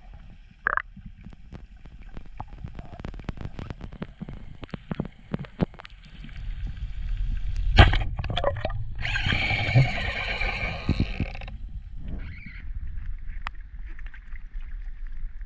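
Underwater camera sound: a scatter of sharp clicks, then one loud thump about eight seconds in as a band-powered speargun fires, followed by about two seconds of rushing hiss. Near the end the sound changes to open-air wind and water around an inflatable boat.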